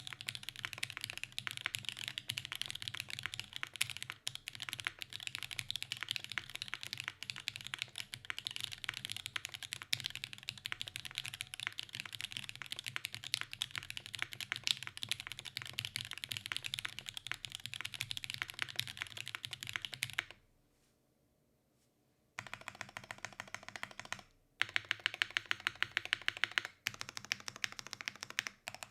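Midway60 mechanical keyboard with lubed SP-Star Meteor White linear switches on an undampened aluminium plate, being typed on steadily. The typing stops for about two seconds about two thirds of the way in, then resumes, with a run of rapid, evenly spaced keystrokes near the end.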